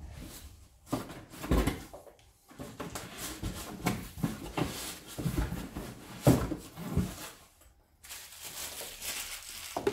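Packaging being handled while items are taken out of a robot vacuum's box: irregular rustles, scrapes and knocks, several sharper knocks around the middle.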